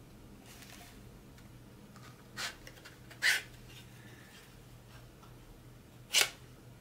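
Plastic 2.5-inch USB hard drive enclosure being worked open by hand: a few short clicks and scrapes as the case unlatches and its parts slide apart, the loudest about three seconds in and another near the end.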